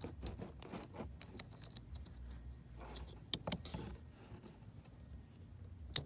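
Small plastic clicks and rattles of a taillight wiring-harness connector being handled and plugged in, with a sharp click near the end.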